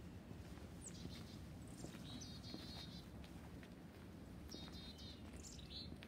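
Black-capped chickadees calling faintly: a few short series of high, repeated call notes, about one, two and four and a half seconds in, over a low steady background rumble.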